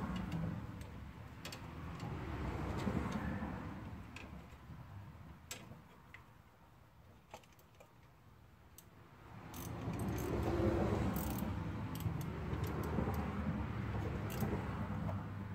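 Light metallic clinking and rattling as a steel brake line and its fitting are handled under a car, with scattered sharp clicks. It comes with rustling handling noise in two spells, near the start and again from about the middle to the end, quieter in between.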